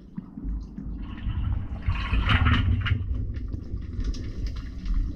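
Pool water churned by a paddling Samoyed, heard from an underwater camera: a muffled low rumble with sloshing and bubbling, scattered ticks and clicks, and a hissing rush strongest about two seconds in.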